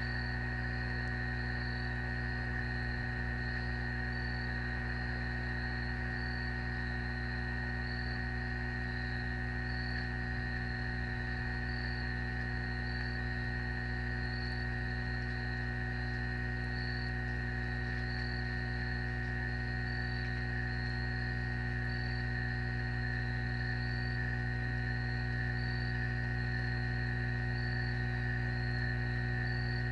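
Steady electrical hum on the nest camera's audio feed, with a high, evenly pulsing insect chorus over it.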